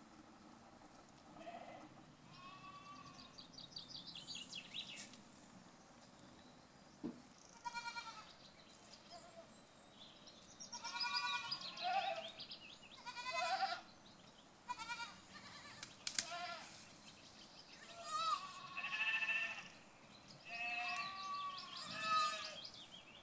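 Goats bleating over and over, high-pitched wavering calls that come sparsely at first and then thick and overlapping, one after another, from about ten seconds in.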